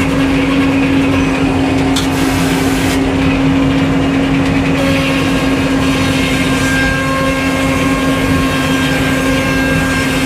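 Sawmill engine running steadily at a constant speed with an even drone.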